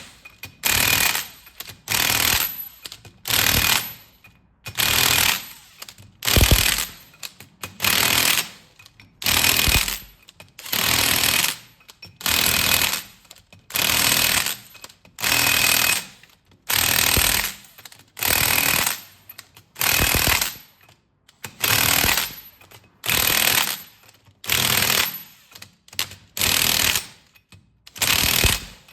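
Impact wrench hammering the ring gear bolts onto a Sterling 10.5 differential carrier, working round the bolt circle in short bursts, about twenty in all, one roughly every second and a half.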